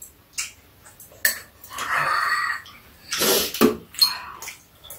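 Eating at a table: metal spoons and chopsticks clicking against bowls a few times, with noisy slurps and mouth sounds of soup and food in between.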